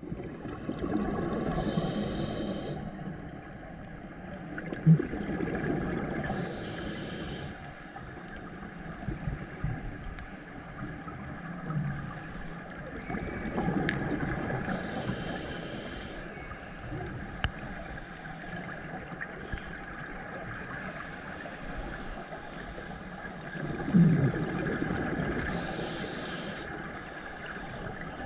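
A scuba diver breathing through a regulator underwater, heard through the GoPro housing: four short hissing inhalations and rumbling, bubbling exhalations in a slow, regular cycle.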